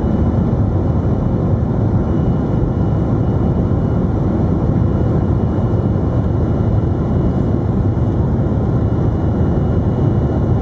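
Steady low rumble of a Boeing 737-300's CFM56 turbofan engines at takeoff thrust as the jet climbs away.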